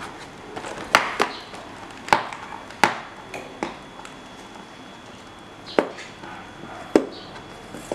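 Fingers and fingernails working at a cardboard box and its sealing tape: a handful of sharp clicks and taps, spread irregularly, with quiet rubbing and handling of the cardboard between them.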